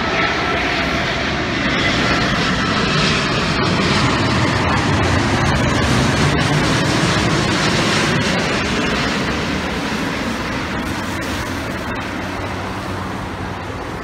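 Jet engines of a four-engined airliner passing low overhead on approach: a continuous jet noise that swells to its loudest mid-way and then fades away.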